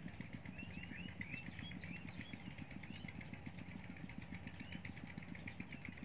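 Many small birds chirping in short, arched calls over a rice paddy, with a steady low hum underneath.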